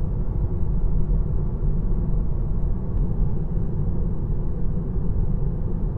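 Tire and road noise inside a Tesla Model 3 cabin at 50 mph on rough pavement, on Michelin MXM4 tires. A steady low rumble, first at 39 psi and then at 45 psi tire pressure, sounding much the same at both.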